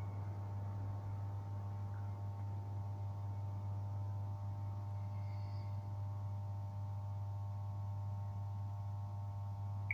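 A steady hum with a low drone and several higher held tones, unchanging throughout, with a faint short chirp about halfway through.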